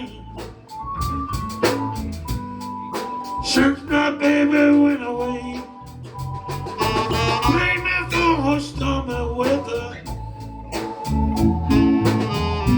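A band playing a slow blues song, an instrumental passage between sung lines with sustained keyboard chords and drums.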